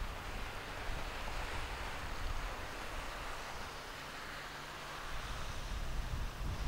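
Wind buffeting the microphone in uneven gusts over a steady hiss of sea surf washing on lava rocks.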